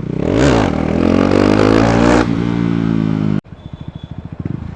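KTM Duke 390's single-cylinder engine, running with its exhaust silencer removed, revs up sharply, holds a high note that slowly falls away, then drops back to a lumpy idle. The exhaust gives uneven pops and bangs as the revs fall.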